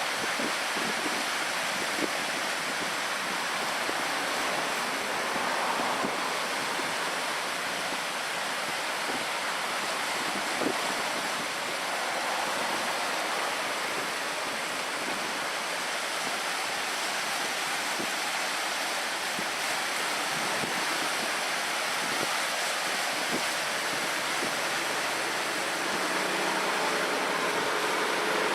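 Steady rushing of wind and sea water at a harbour, with a few faint knocks. About two seconds before the end, a low engine hum begins to come in.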